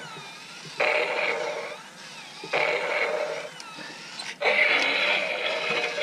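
Remote-control walking T-Rex toy playing its electronic roar and growl sound effects, sudden bursts about a second long roughly every two seconds, with a longer, louder one about four and a half seconds in.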